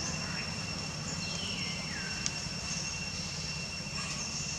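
Outdoor forest ambience: a steady low rumble of distant engine noise under a continuous high-pitched insect drone. A falling call comes about a second and a half in, and a single click a little after two seconds.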